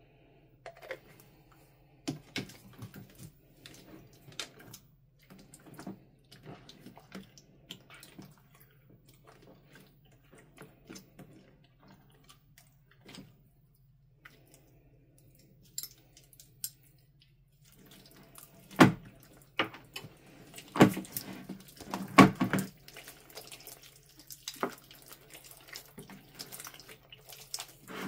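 Thick wet slime being worked with a metal spoon and by hand, pulled and kneaded: scattered sticky clicks, pops and squelches. They come denser and louder for a few seconds about two-thirds of the way in.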